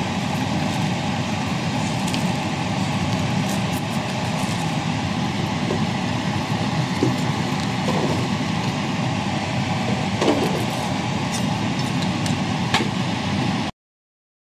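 A steady, even rushing hum with a few faint clicks, which cuts off suddenly near the end.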